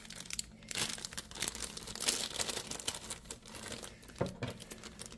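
Clear plastic bag crinkling in the hands as a packaged plush toy is handled, a steady run of irregular crackles.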